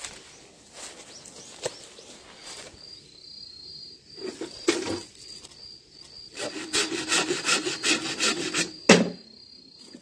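Hand saw cutting through a green bamboo stalk in quick back-and-forth strokes, several a second, over the last few seconds, ending in a sharp knock. A steady high insect trill runs underneath.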